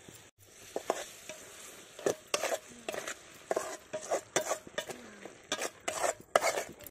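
A metal spatula scraping and stirring a thick fish curry in a metal pot. A run of short scrapes begins about a second in, coming irregularly two or three times a second, and is loudest near the end.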